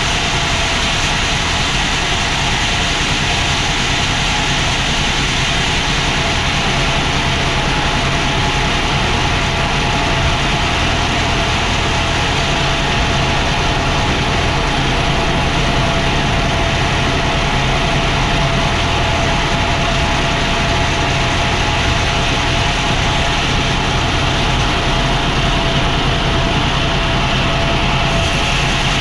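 Sawmill machinery running steadily for the whole stretch: a low rumble with a steady tone above it, the sound of the mill working a mahogany log into planks.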